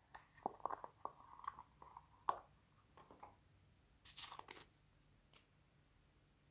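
Faint small crinkling and squishing as fingers press and handle a soft rubbery figure, a string of little sounds over the first three seconds. About four seconds in, a short scratchy rattle as a tube of glitter is opened.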